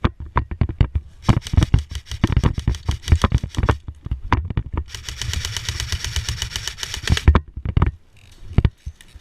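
Airsoft guns firing: irregular single shots and clicks for the first few seconds, then a rapid full-auto burst of about two seconds starting around five seconds in, and a couple more shots near the end.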